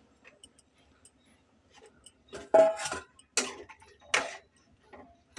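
A metal spatula scrapes and clanks against a metal pan of simmering dal and pumpkin pieces, four or five short strokes in the second half. Before them there is a faint, steady ticking of the simmering.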